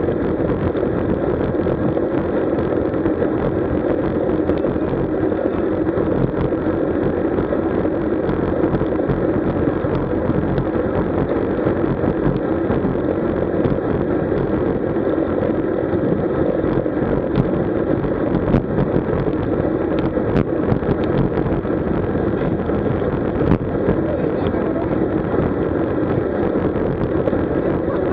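Steady rushing wind and road noise from a camera moving with a road bike at riding speed, with a few faint ticks scattered through it.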